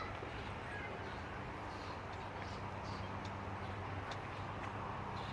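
Faint bird calls, a few short high notes, over steady outdoor background noise with a low hum.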